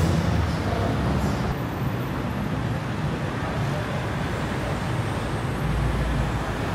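Busy city road traffic: a steady wash of car engines and tyre noise from many passing vehicles.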